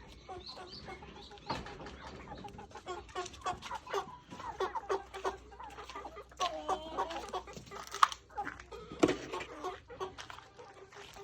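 Chickens clucking, many short calls overlapping, busier in the second half. Two sharp knocks stand out near the end.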